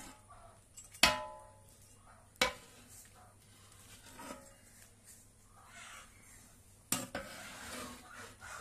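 A utensil knocking against a cooking pot of meat three times. The first and loudest knock leaves the pot ringing briefly. The last is followed by about a second of scraping as the contents are stirred.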